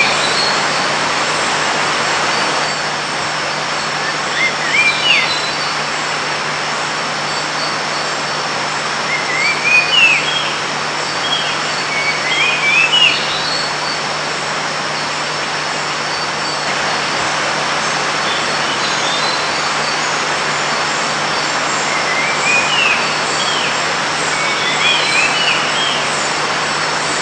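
Tropical forest ambience: a loud, steady hiss with thin high insect whines, while a bird calls short rising whistled phrases every few seconds.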